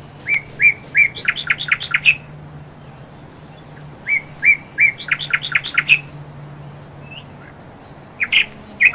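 A bird singing the same short phrase twice, about four seconds apart: three even notes followed by a quick run of sharp chirps. A couple of shorter calls follow near the end, over a faint steady low hum.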